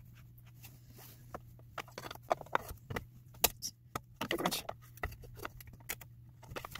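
Plastic pre-filter housing of an APEC RO-90 reverse osmosis system being screwed back onto its filter head by hand: irregular small clicks, taps and scrapes of plastic on plastic, over a faint steady low hum.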